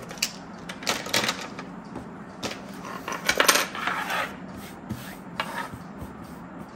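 Light clicks and clatter of plastic marker pens being gathered up and set down on a wooden desk, with a longer rustle of handling a little past the middle.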